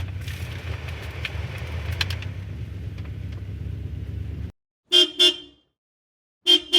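Car horn giving two quick double toots, the pairs about a second and a half apart. Before them a low rumble with scattered clicks cuts off abruptly.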